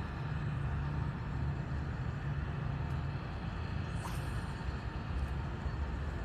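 Steady low outdoor background rumble, with one faint short tick about four seconds in.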